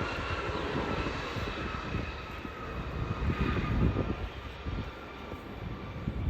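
Jet airliner passing, its engines' whine sinking slightly in pitch over a low rumble and fading as it goes by.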